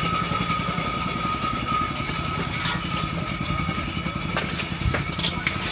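A small engine running steadily at idle, with a steady faint whine above it and a few sharp clicks near the end.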